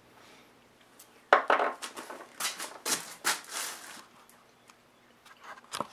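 Irregular knocks, scrapes and metallic clatter of parts or tools being handled at a milling machine setup, a burst of sharp hits starting about a second in, then a few light clicks near the end. No cutting is heard.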